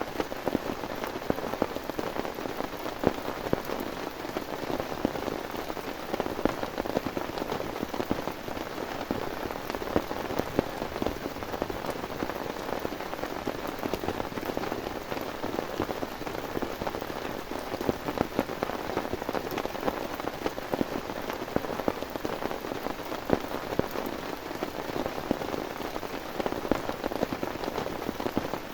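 Heavy rain falling steadily, a dense hiss with many single drops striking sharply and close by.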